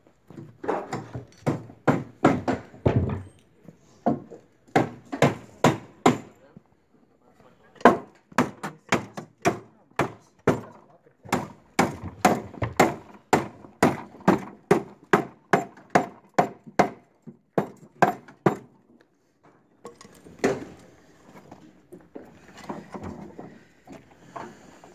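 Hammer blows on wooden foundation formwork, about two to three a second, in several runs separated by short pauses. The blows stop a few seconds before the end, leaving fainter, irregular knocking.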